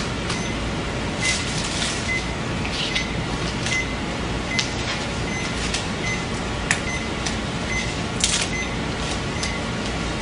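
Handling noise from ECG limb electrodes and their lead wires being attached: scattered light clicks and brief rustles over a steady hiss, with faint short high beeps here and there.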